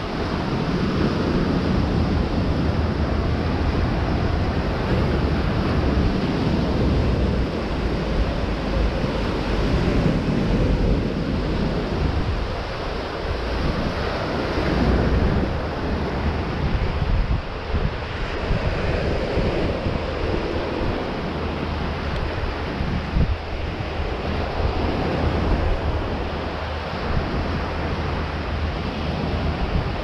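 Ocean surf washing onto a beach in a steady rush, with wind blowing across the microphone.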